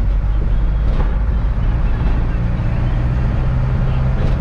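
Engine and road noise of a freight vehicle, heard from inside the cab while it drives: a steady low drone whose engine note shifts about halfway through.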